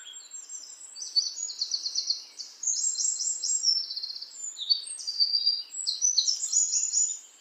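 Songbird singing: a fast, varied run of high chirps and rapid trills, with barely a pause.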